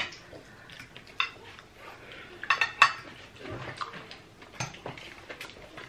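Metal forks clinking against a glass serving bowl of noodles: scattered light clinks with short ringing, a quick cluster of them about halfway through being the loudest.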